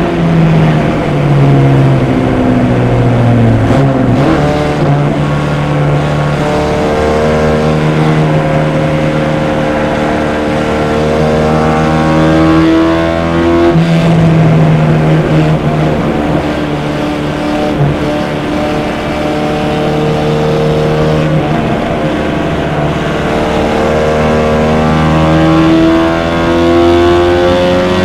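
MG race car's four-cylinder engine heard from the cockpit, running hard at high revs. The pitch drops and climbs again several times through braking and gear changes, over a steady rush of wind and road noise.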